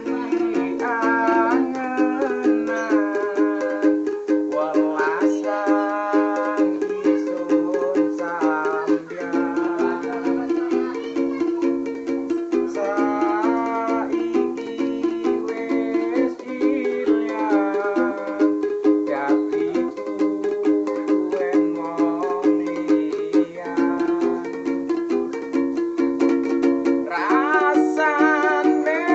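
A singer performing a song over a strummed ukulele, the chords struck in a steady, rhythmic strum throughout.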